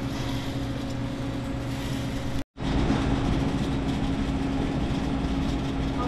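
APW conveyor toaster running with a steady hum from its fan and conveyor drive while its chain-link belt, shortened by one link so it sags less, is test-run. The sound cuts out for a moment about two and a half seconds in.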